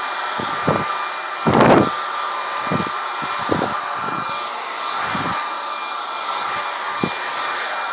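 Cordless stick vacuum cleaner running in auto mode: a steady motor whine over a rushing hiss of suction, with several short thumps from the floor head as it is pushed about, the loudest about one and a half seconds in.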